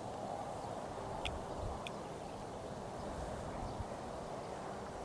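Open-air background ambience: a steady hiss, with two short high chirps a little over a second in and a few soft low thumps.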